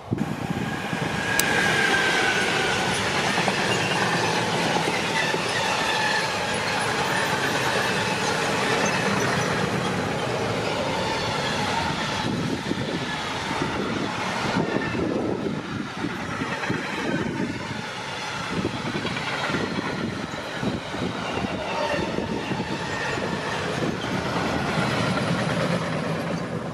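Freight train passing close at speed behind a Class 186 (Bombardier TRAXX) electric locomotive. Pitched tones dropping in pitch mark the first seconds, with a sharp click about a second and a half in. After that a long string of sliding-wall box wagons rumbles and clatters over the rails in a steady wash of wheel noise.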